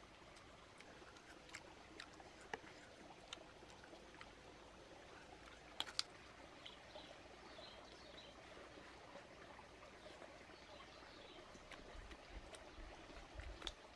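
Near silence, with a few faint scattered clicks of a person chewing, and two sharper clicks about six seconds in.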